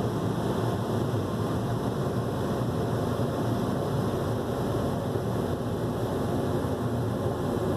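Automatic car wash equipment running, heard from inside the car's cabin: a steady, even rushing noise with no breaks.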